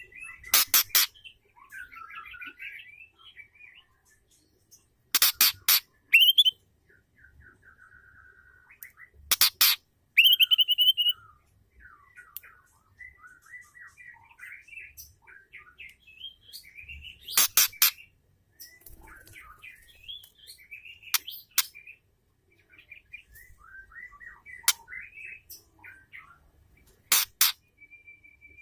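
Female white-rumped shama calling: about nine loud, sharp calls under a second each at uneven intervals, with softer chattering and twittering notes in between.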